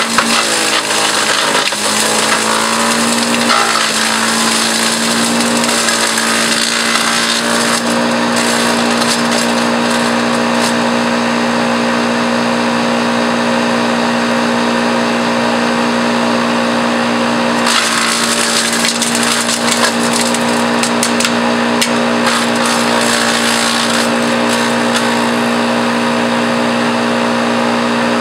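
Patriot electric wood chipper running with a steady motor hum while branches are fed in and shredded into chips. The crackling of wood being chipped comes and goes, heaviest in the first eight seconds and again from about 18 to 24 seconds in.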